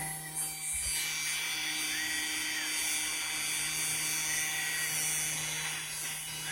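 Mini CNC machine's stepper motors whining as the axes move through a test path, the high whine gliding up, holding and dropping away several times as each move starts and stops, over a steady electrical hum.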